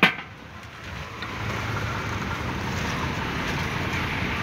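A sharp knock right at the start, then steady rushing noise, like wind on the microphone, with no clear tone or rhythm.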